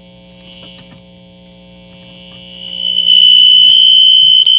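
The loudspeaker of a 1954 Crosley E20TN tube table radio gives out a piercing high-pitched squeal over a low hum. The squeal swells from faint to very loud in the second half, then cuts off suddenly. It is the fault that is still present after the recap.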